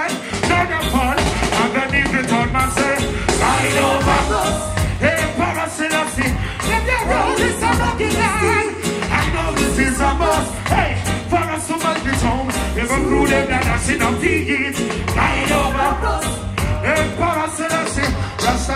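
Live reggae band (drums, bass, keyboards, guitar) playing through a festival sound system with a steady bass beat, while a male vocalist sings over it into a microphone.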